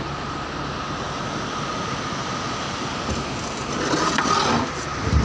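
Open-backed jeep driving on a rough mountain track, heard from its load bed: steady engine and road noise with a constant whine. The noise swells briefly about four seconds in, and a low thump comes near the end.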